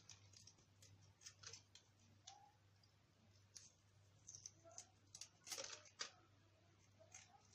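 Faint, irregular snips of kitchen scissors trimming a mackerel's fins, with a denser cluster of snips about five and a half seconds in.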